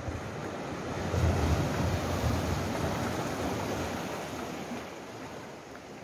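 Sea waves breaking and washing over shore rocks. The surge swells about a second in, then slowly fades away.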